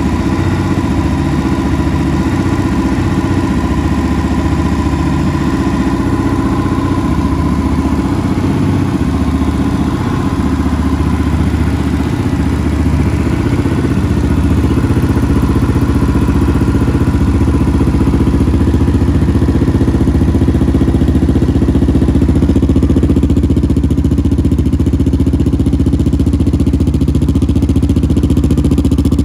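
Single-cylinder engine of a Honda CB Twister motorcycle fitted with an aftermarket GP slip-on muffler, idling steadily through the open exhaust. It gets a little louder from about halfway.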